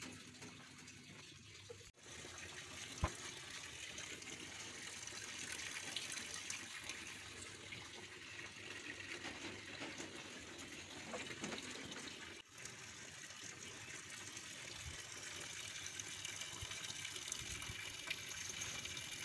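Steady rushing hiss with one sharp click about three seconds in.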